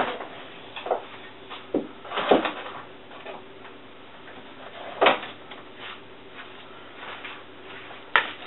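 Scattered knocks and clatter of things being handled in a kitchen, the loudest about two and five seconds in, over a low steady hum; near the end a small cake is set down on a marble slab with a knock.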